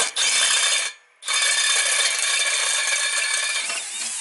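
Electric hand drill running under load as a freshly sharpened 7/32-inch twist bit cuts dry through quarter-inch steel plate. It stops briefly about a second in, then drills on steadily and cuts off sharply at the end as the hole is through.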